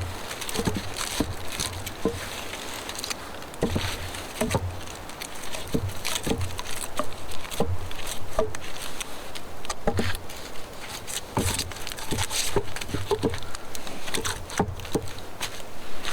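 A string of irregular knocks and snaps, one or two a second, some with a dull thump under them, over a steady rustling noise.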